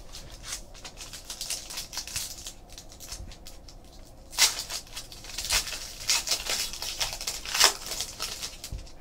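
Light rustling and taps as trading cards are handled, then a foil wrapper of a 2015 Panini Diamond Kings card pack torn open and crinkled, with sharp crackling from about four seconds in, loudest twice.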